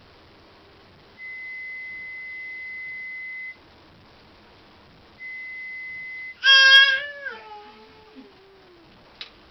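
Two steady pure test tones of an audiometer at about 2 kHz, the first lasting about two seconds and the second about a second. Then a loud high-pitched vocal cry that falls in pitch and trails off over a couple of seconds, with a short click near the end.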